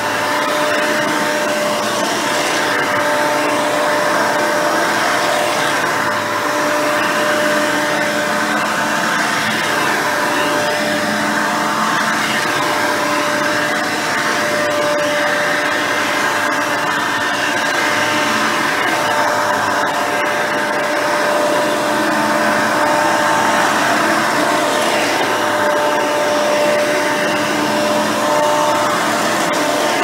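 Hoover Elite 350 upright vacuum, fitted with a 7-blade fan and a dual-row bristle brush roll, running steadily while pushed back and forth over carpet: a steady rush of air with a steady whine over it.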